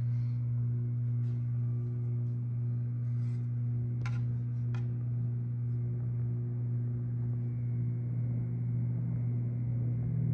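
Harbor Breeze Springfield II ceiling fan running, its motor giving a steady low hum, with two brief clicks about four seconds in.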